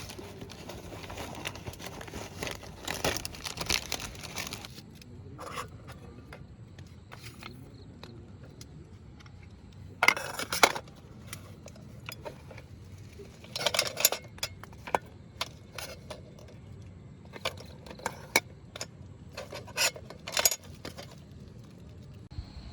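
Handling noise: scattered rustles, scrapes and small clicks, with louder bursts about ten, fourteen and twenty seconds in.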